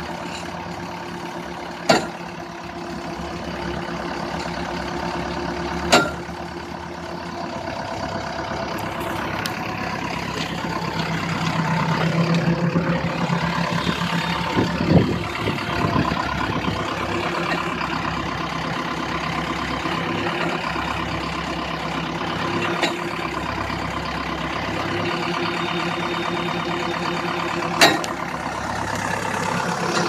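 Heavy wheeled machine's diesel engine running steadily, with a sharp knock heard a few times at uneven intervals. The knock is the fault being filmed. The engine runs a little louder from the middle on.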